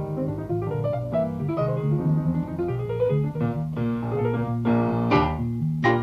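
Instrumental closing-theme music led by piano over a walking bass line, with quick runs of notes and a few sharp chords struck in the second half.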